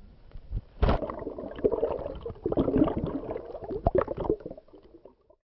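Seawater splashing and gurgling around a camera as it is dipped under the surface, starting with a sharp splash about a second in. Crackly bubbling follows, then fades out.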